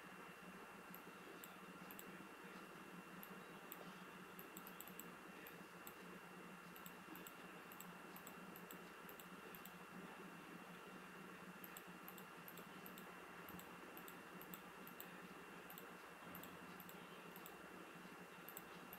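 Near silence broken by faint clicks of a computer mouse, some single and some in quick runs, over a steady electrical hum and hiss.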